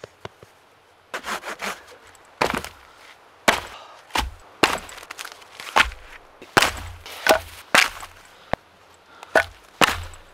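Cut log rounds of firewood knocking against each other as they are picked up and dropped onto a pile: a dozen or so sharp wooden knocks at irregular intervals.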